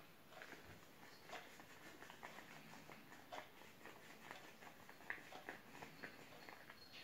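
Faint, irregular squishing and crackling of shaving foam as it is squeezed by hand with a balloon in a plastic bowl.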